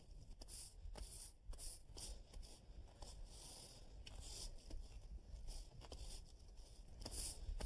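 Push brooms sweeping stone dust across a brick walkway, working it into the joints to lock the bricks together: a faint run of short, scratchy bristle strokes, about two a second.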